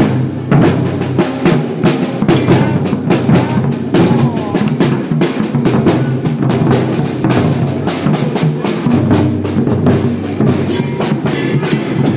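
Percussion group playing the maracatu de baque virado rhythm: dense, steady drumming with deep bass drum strokes and sharp, clacking higher strikes.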